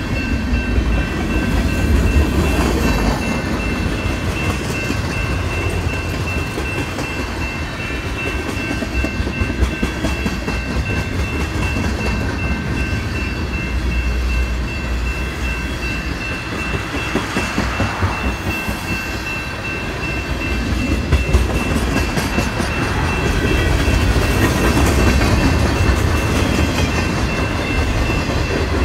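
Mixed freight train's cars rolling past a grade crossing: a steady low rumble of wheels with clacking over the rail joints and crossing. A grade-crossing bell rings steadily over it.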